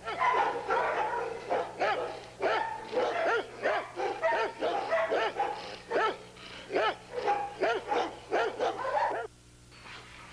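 Bouvier des Flandres barking in a rapid, unbroken run of about three barks a second, which stops about nine seconds in.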